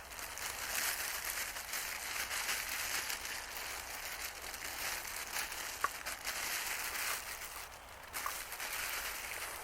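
Continuous rustling and crinkling, dense with small crackles, and one sharp click about midway.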